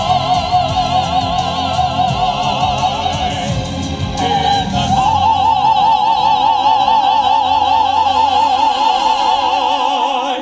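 Operatic-style vocal quartet of two women and two men singing through microphones with strong vibrato, moving about five seconds in to a loud final chord that is held to the end.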